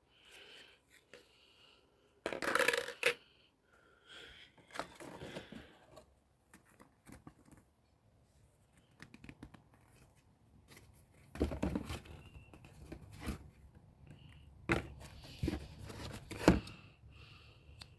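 Unboxing noises: packaging rustling and tearing, with scattered clicks and knocks as the cordless vacuum cleaner and its parts are taken out and handled. The handling is busiest in the second half.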